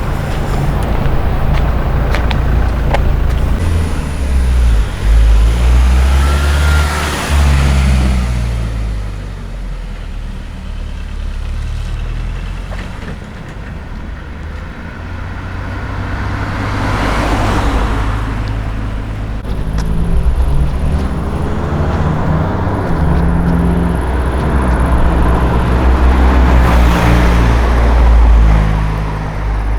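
Motor vehicle engine noise, its low hum stepping up and down in pitch, with louder rushes about every ten seconds.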